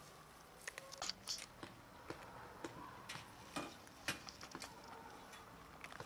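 Stray cats eating cat food: faint, irregular wet clicks and smacks of chewing and lapping, a few sharper ones about a second in and again near four seconds.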